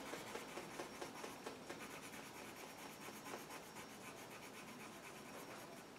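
Coloured pencil scratching on paper as petals are coloured in with short, quick back-and-forth strokes, about four a second, faint.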